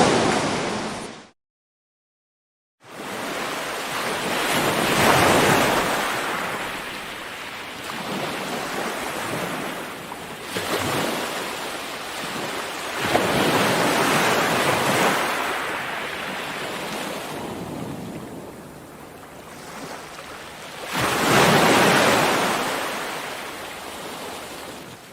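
Broad rushing noise that swells and fades in slow surges several seconds apart, like surf or gusting wind, with a brief cut to silence near the start.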